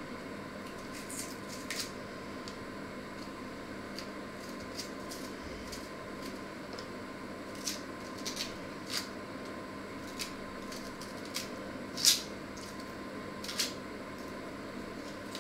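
Short, crisp snicks and scrapes of a small kitchen knife cutting peel away by hand, coming irregularly, the loudest about twelve seconds in, over a steady electrical hum.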